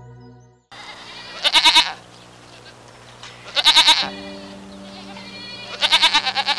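Goats bleating: three quavering bleats about two seconds apart, the last one the longest, over soft background music.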